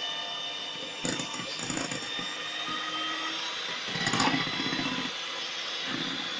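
Electric hand mixer running steadily, its beaters whisking a runny cupcake batter in a bowl. It swells louder for a moment about a second in and again around four seconds.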